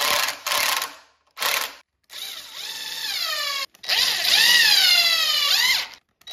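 Cordless drill driving long wood screws into a clamped 2x4 corner joint. It starts with a few short bursts, then makes two longer runs with the motor whine sliding down in pitch and rising again near the end of each.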